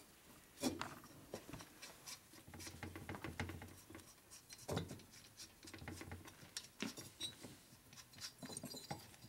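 Faint, scattered light clicks and metal taps of cylinder base nuts being turned by hand and worked down their studs a little at a time on a Harley-Davidson shovelhead engine.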